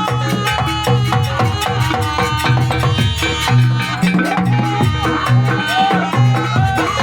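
Live jaranan ensemble music: drums and pitched percussion keep a driving, evenly pulsed beat over repeated low notes, with a melodic line that slides up and down in pitch from about the middle on.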